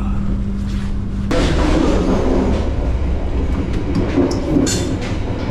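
Inside a moving passenger train: the steady rumble and clatter of wheels on the rails, growing suddenly louder about a second in.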